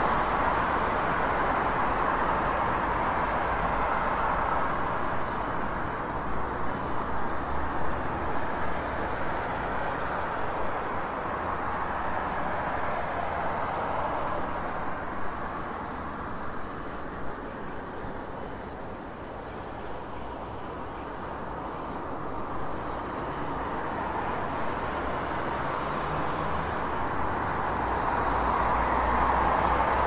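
City street traffic: a steady wash of vehicle and road noise that eases off in the middle and builds again near the end.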